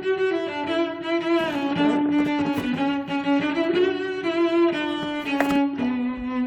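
Background music played on bowed strings, violin and cello, in slow held notes that change about once a second.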